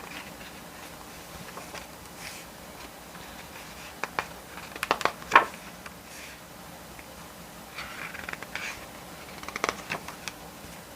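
Glossy pages of a photo book being turned and handled: short paper rustles and taps, loudest about five seconds in, with a second cluster near the end.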